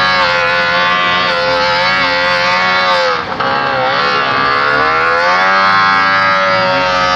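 Attex amphibious ATV's JLO 440 two-stroke twin engine running at high revs under load as the machine pushes through deep mud. The pitch wavers, sags a little around three seconds in, then climbs back up.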